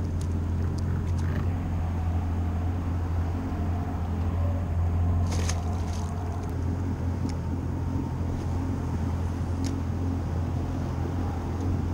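Steady low engine hum, with a short splash of water about five seconds in and a faint click near the end.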